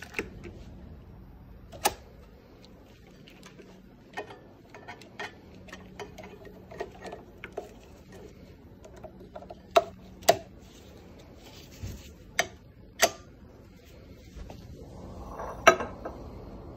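Scattered clicks and knocks from plastic tubing, a peristaltic pump head and lab bottles being handled, a few of them sharp and loud. A faint steady hum runs underneath.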